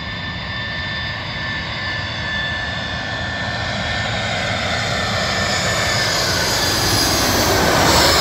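Airbus A318-111 jet on final approach, its twin CFM56 turbofan engines running at approach power with a steady high whine over a rushing noise. It grows steadily louder as it comes in low and is loudest near the end as it passes overhead, the whine sliding a little lower in pitch.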